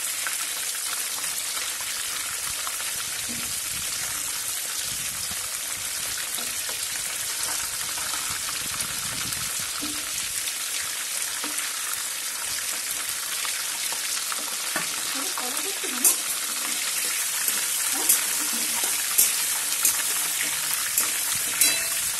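Batter-coated chicken pieces frying in hot vegetable oil in a frying pan: a steady sizzling hiss while a metal spoon stirs and turns them. Several sharp clicks come in the last few seconds.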